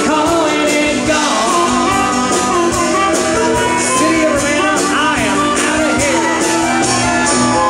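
Live rock band playing: drums keep a steady beat under acoustic and electric guitars and keyboard, with a melody line bending up and down over them.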